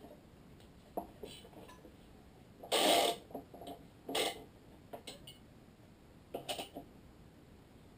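Badminton racquet stringing: a few short rushing sounds of string being drawn and handled, the loudest about three seconds in and another just after four, among light clicks and knocks from the stringing machine's clamps and tensioner.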